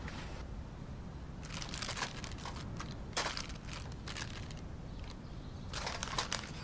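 Soft rustling and light clicking from handling, in three short spells about a second and a half, three seconds and six seconds in, over a low steady room hum.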